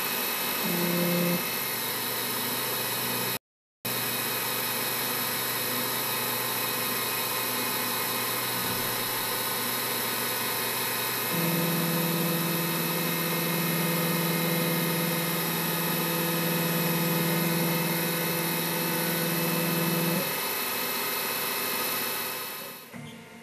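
Optimum D280 x 700 Vario CNC lathe running with a steady electric whine made of many high tones. A lower steady hum joins for about nine seconds from midway, and the whole sound drops away just before the end.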